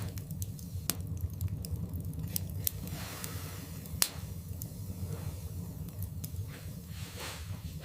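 Wood fire burning in a fireplace, crackling with scattered sharp pops over a steady low rumble. One louder pop comes about four seconds in.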